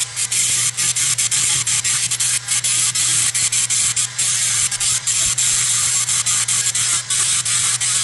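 Abrasive sanding of rusted steel Vise-Grip pliers: a steady scratchy hiss broken by many brief dips, over a steady low hum.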